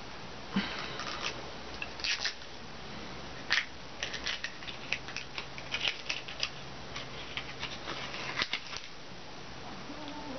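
Irregular crinkling and clicking of plastic as a bottle of Ramune soda and its plastic wrapping are handled. The clicks come thickest through the middle and thin out near the end.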